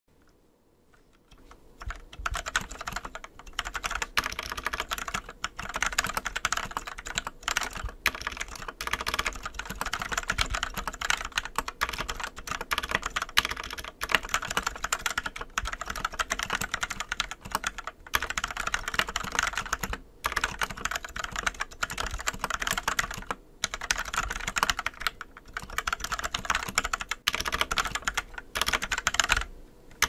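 Fast, continuous typing on a mechanical keyboard fitted with partially lubed Gateron Brown tactile switches: a dense clatter of keystrokes starting about a second and a half in, broken by a couple of brief pauses.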